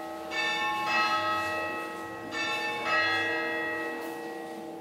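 Church bells ringing: fresh strikes come in pairs about half a second apart, roughly two seconds between pairs, over a sustained ringing hum that slowly fades.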